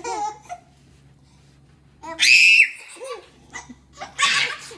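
Twin babies laughing and squealing at each other: a short giggle, then a loud high-pitched shriek about two seconds in, and a burst of laughter near the end.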